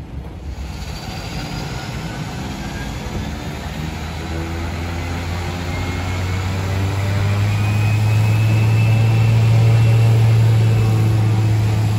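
Turboprop aircraft running, a steady low propeller hum under a high turbine whine, growing steadily louder and loudest about eight to eleven seconds in.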